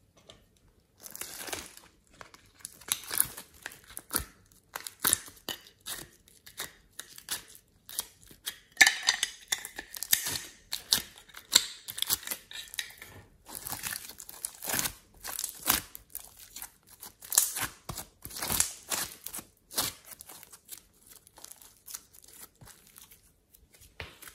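Modeling clay and its plastic containers handled close to the microphone: irregular crackly crinkling and tearing sounds in short bursts.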